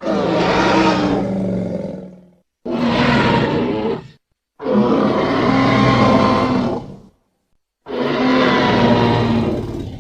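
Creature roar sound effect: four long, loud roars in a row, each one to two and a half seconds, with short silent gaps between them. The last roar trails off near the end.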